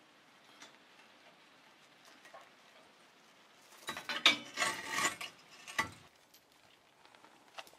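Fired stoneware pots and bits of clay wadding on a kiln shelf clinking and scraping as they are handled. There is a quick cluster of hard ceramic clatter about four seconds in that lasts about two seconds, then a few single clicks.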